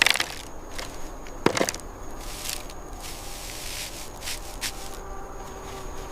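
Scattered light clicks and crackles, with a sharper knock about one and a half seconds in, over a faint background.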